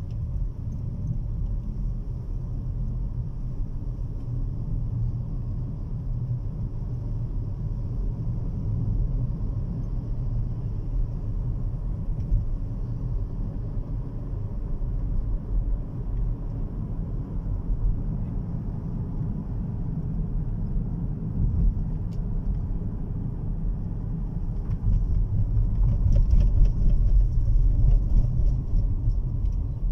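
Low, steady rumble of a car's engine and tyres heard from inside the cabin while driving, growing louder near the end with a few light ticks.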